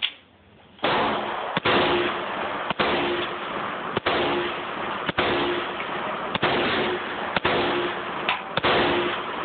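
SKS rifle (7.62×39mm) firing a steady string of shots, roughly one a second, starting about a second in. The shots overload the phone's microphone, so they run together into a continuous distorted noise.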